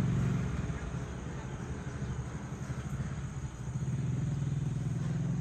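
Engine of a motor vehicle running steadily, fading somewhat in the middle and growing louder again from about four seconds in.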